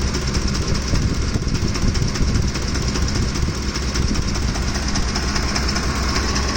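Ford F-150's 5.4-litre 3V Triton V8 running hot with a loud, fast, steady ticking rattle from the top of the engine, which the owner suspects is a camshaft or timing-chain problem on the left bank.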